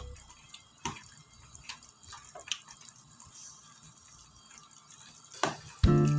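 A hand squishing and kneading sliced pork in raw egg and marinade in a plastic tub: scattered soft, wet squelches and clicks. Guitar music starts up near the end.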